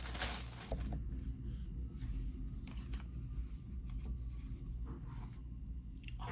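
Handling of a plastic phone case: a brief rustle, then scattered small clicks and light scrapes, typical of fitting a phone into a snap-on case.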